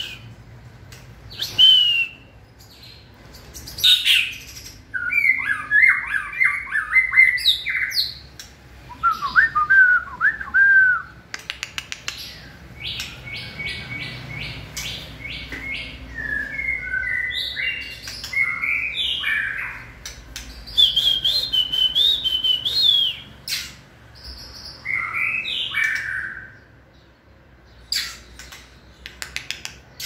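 White-rumped shama singing: a string of varied phrases of quick rising and falling notes with short pauses between, including a run of short clicking notes, about five a second, near the middle.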